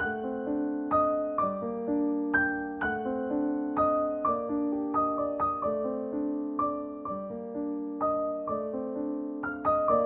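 Background piano music: single notes struck at an easy, even pace over lower held notes, each ringing and fading.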